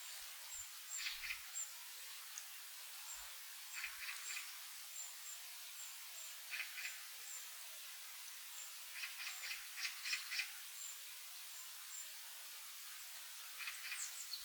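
Small forest birds calling faintly: a thin, very high note repeated about every half second, and short bursts of quick chattering notes a few times, the loudest about two thirds of the way in.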